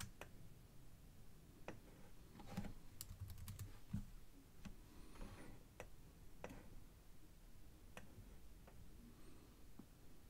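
Faint, scattered clicks of a computer keyboard, with a quick run of keystrokes about two and a half seconds in.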